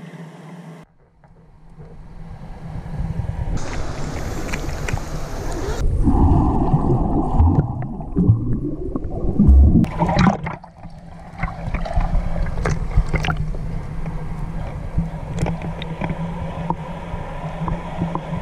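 Water sloshing and gurgling against an action camera's waterproof housing held at the surface, with the sound changing abruptly several times as it dips under and comes up. A swimmer's strokes splash close by about ten seconds in.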